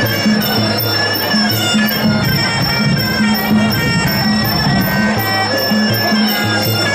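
Traditional Muay Thai sarama fight music: a reedy Thai oboe (pi) playing a continuous wailing melody over a steady drum beat.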